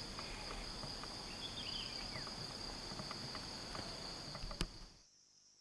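Insects droning steadily at a high pitch, with light crunching footsteps on dry leaf litter underneath; the sound stops abruptly about five seconds in.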